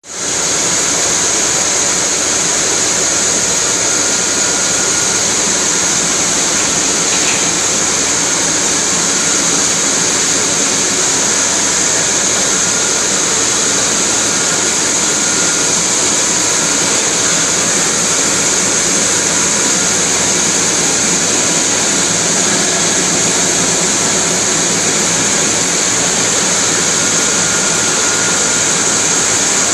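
High-speed double-twist wire bunching machines running: a loud, steady mechanical noise with a strong high hiss, unchanging throughout.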